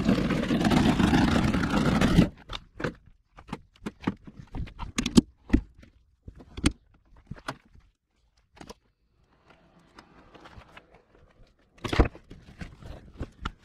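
Loud rustling noise for about two seconds that cuts off suddenly, then scattered sharp clicks and knocks of plastic center-console trim being worked loose.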